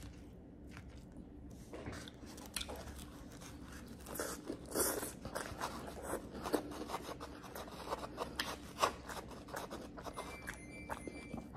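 Close-miked chewing and crunching of a mouthful of a homemade Chipotle-style bowl with banana peppers and sauce: a run of small, irregular crunches and mouth clicks, starting about two seconds in.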